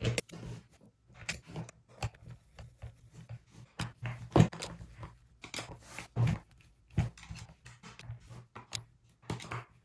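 Hand screwdriver turning screws that fasten a receptacle's angle to its metal wall box: irregular clicks, scrapes and knocks of the tool and the housing being handled, the loudest about four and a half seconds in.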